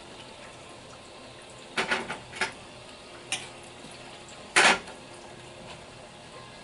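Cookware clattering: a utensil knocks against stainless pans and a bowl about five times, three quick knocks about two seconds in and the loudest near the two-thirds mark, over a faint steady sizzle of potatoes frying in oil.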